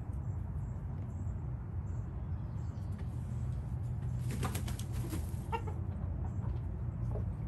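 A rooster flapping its wings in a quick flurry lasting about a second, around four seconds in, followed by a couple of short chicken calls, over a steady low rumble.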